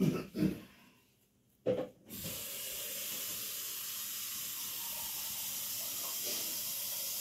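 Water being poured from a container into the plastic reservoir tank of a hydroponic grower, a steady splashing stream that starts about two seconds in.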